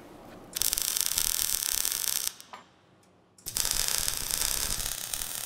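MIG welder's arc crackling steadily as it lays a weld on a steel angle-iron frame, in two runs: the first starts about half a second in and lasts nearly two seconds, the second starts about a second after it stops.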